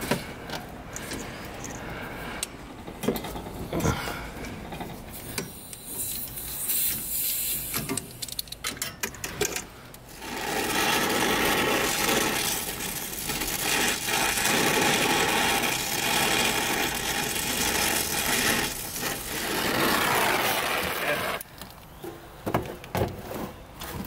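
Small clicks and knocks of handling for the first ten seconds. Then a brazing torch burns with a steady hiss for about eleven seconds while a 3/8 copper stub is brazed onto a refrigerant line tap. The torch cuts off a couple of seconds before the end.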